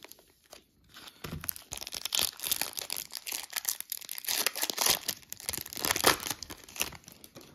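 Foil Pokémon booster pack wrapper being torn open by hand and crinkled as it is pulled apart: a dense run of crackling and tearing that starts about a second in and is loudest near the end.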